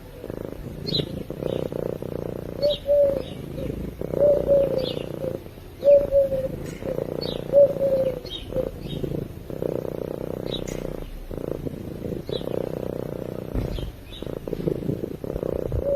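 Domestic cat purring steadily and close up. Short high bird chirps come about once a second, and a few brief falling lower notes sound over the purr.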